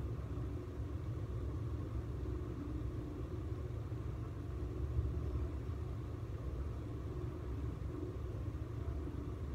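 Steady low background rumble, strongest in the bass, with no distinct events.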